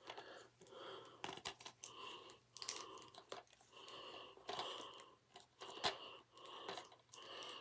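A string of faint, irregular crunching snips and crinkles as plastic packaging on a DVD case is cut and worked with scissors.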